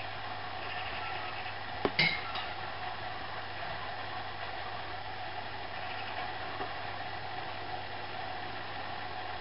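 Steady background hum and hiss, with two sharp clicks close together about two seconds in.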